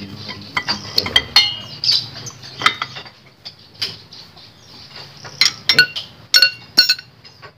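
Metal hand tools clinking against each other and against a scooter's CVT clutch bell as a clutch holder tool is handled and fitted: a dozen or so irregular, sharp clinks, several with a short metallic ring.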